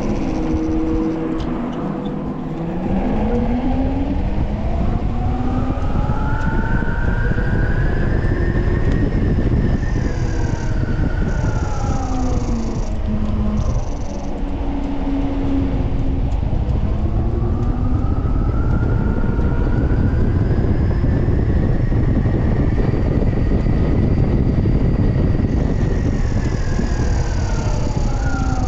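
3000-watt electric hub motor whining as the bike accelerates and slows. The pitch climbs for several seconds and then falls, twice, over a steady low rumble of wind and road noise.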